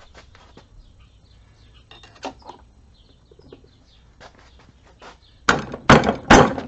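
Light metal tool clicks and taps, then a rapid run of four hard metallic strikes near the end, as a seal is worked out of an NP229 transfer case housing.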